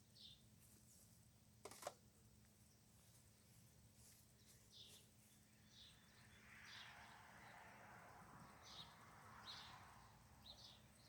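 Near silence: faint outdoor ambience with scattered, faint bird chirps. A single soft click about two seconds in.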